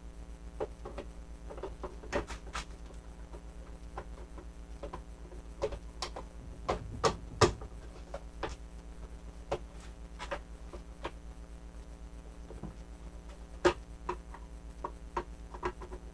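Hard Playmobil plastic parts clicking and knocking while a piece is worked onto the dungeon tower, with a few sharper snaps around the middle and once near the end. A steady electrical hum runs underneath.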